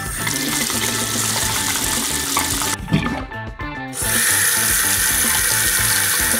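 Water running from a tap, a steady rush, over background music. A thump comes about three seconds in, and from about four seconds a different steady hiss takes over.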